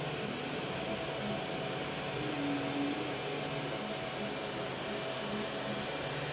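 Home-built CoreXY 3D printer printing: a steady hiss from its cooling fans, with short humming tones from the stepper motors that change pitch as the print head moves.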